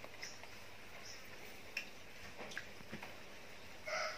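Quiet rural background with a few faint ticks and brief, high bird chirps; near the end a rooster starts crowing.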